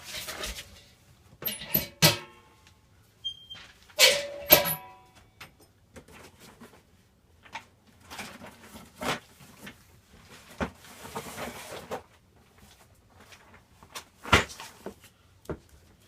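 Scattered knocks and clatters of tools and hardware being handled. Two of them, about two seconds in and around four seconds in, have a short metallic ring. There is a soft rustle near the middle.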